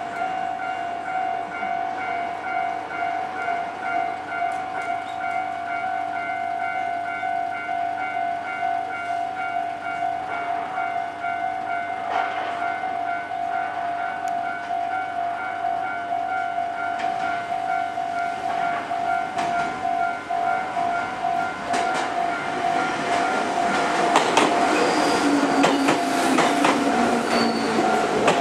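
Japanese railway level-crossing warning bell ringing in a fast, steady, repeating pulse. Over the last few seconds a train's running and wheel noise builds up and becomes the loudest sound.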